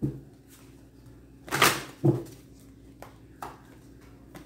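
Short rustle about a second and a half in and a few soft knocks and a click over a faint steady hum.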